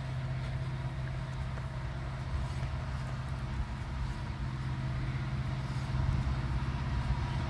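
Diesel locomotive engines of an approaching loaded BNSF coal train, led by an EMD SD70ACe, running with a steady low drone that grows gradually louder.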